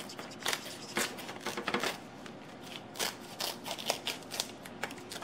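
Kitchen scissors snipping through plastic meat packaging, and the plastic crinkling and crackling as it is pulled apart by hand: a dense, irregular run of small crackles.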